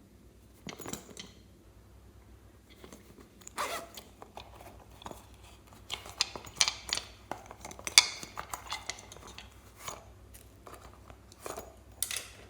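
Slime being squished and stretched by hand, giving irregular sticky clicks, pops and crackles.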